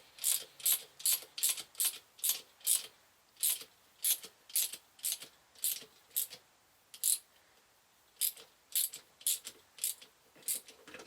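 Rapid sharp clicking, about two to three clicks a second with a brief pause partway, from a tool winding in the centre bolt of a homemade puller. The puller is drawing a part off the front bearing of a Lucas C45 dynamo's armature shaft.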